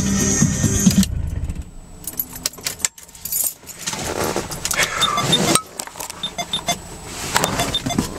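Music from the car stereo cuts off about a second in, followed by keys jangling and clicking in a car's cabin.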